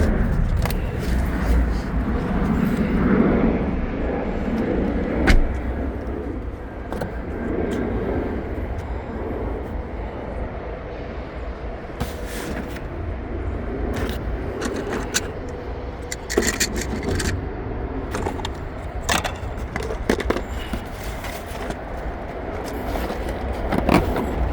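Scattered clicks, knocks and light scrapes of objects being handled and moved about, over a steady low rumble.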